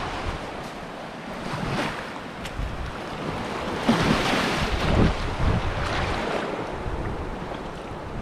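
Surf washing up the beach, one wave surging louder about four seconds in, with wind buffeting the microphone.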